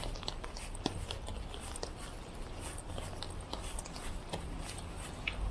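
Rain falling: many irregular sharp ticks of raindrops over a steady low rumble.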